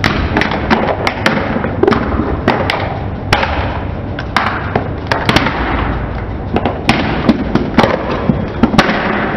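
Red plastic toy truck cracking and snapping under a slowly rolling car tyre: a long, irregular run of sharp cracks and pops over a gritty crunch as the plastic breaks apart.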